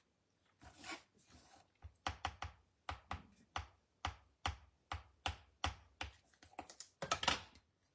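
Ink pad tapped repeatedly against a clear stamp on an acrylic block to ink it, a quick run of light plastic taps, about three a second.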